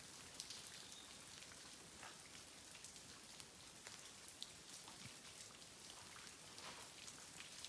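Quiet outdoor ambience: a faint steady hiss with many light, scattered ticks.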